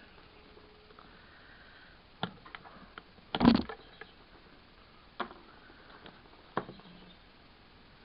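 Plastic clicks and taps from a hand handling a digital multimeter and pressing its buttons: a handful of single clicks, with a louder cluster of knocks about three and a half seconds in.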